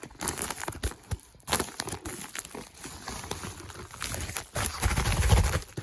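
Packaging being handled and opened by hand: crinkling and rustling with scattered small knocks, and a dull low rumble of handling for about a second near the end.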